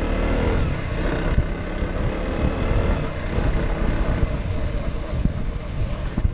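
Wind buffeting the microphone of a moving motorcycle, with the KTM Duke's engine running steadily beneath it at riding speed.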